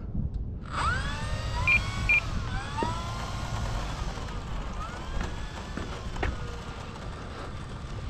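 A thin whine with several pitches that slowly rises and falls, with two short high beeps about a second in and a few ticks later, over low wind rumble on the microphone.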